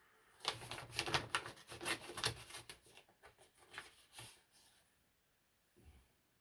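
Paper and packaging rustling and crinkling by hand as a parcel is opened: a quick run of rustles and small clicks that dies away about five seconds in.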